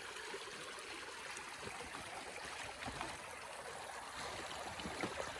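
A stream running and trickling steadily, with a few faint small ticks.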